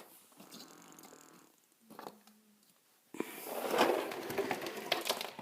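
Near silence, then from about three seconds in, the rustling and light clicking of a toy set's plastic pieces and packaging being handled and unpacked.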